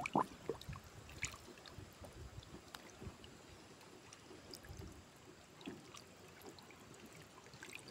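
A hand splashing in shallow water: a few splashes in the first second, then faint lapping and trickling water with small drips.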